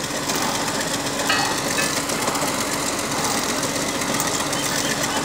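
Truck-mounted borewell drilling rig's engine running steadily under a dense mechanical rattle, with a brief high squeak about a second in.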